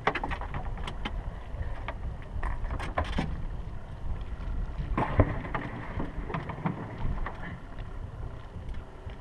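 Low steady rumble of wind on the microphone out on open water, with scattered irregular clicks and knocks.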